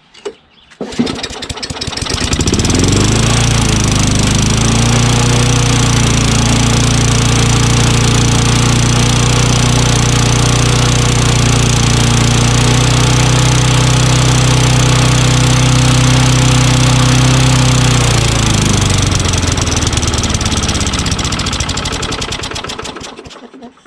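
Craftsman push mower's single-cylinder Tecumseh engine pull-started, catching about a second in and revving up, then running steadily for about fifteen seconds before slowing and dying out on its own near the end. The owner thinks it is losing compression.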